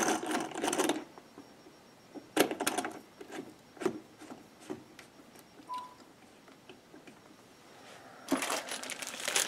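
Quick metallic rattling, then a handful of separate clicks, as the spring-loaded mounting nuts of an EK Supremacy CPU water block are tightened down onto the motherboard. A rustle of handling comes near the end.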